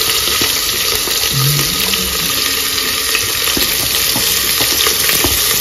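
Sliced onions sizzling in hot oil with curry leaves in an aluminium pressure cooker, a steady frying hiss, with a few light ticks as more onion drops in.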